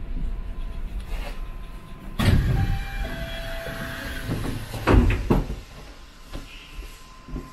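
Suspended monorail train sounds heard from inside the car at a station. A loud rush starts about two seconds in, carrying a short steady tone. Two sharp knocks follow around five seconds in, and then it settles to a lower running noise.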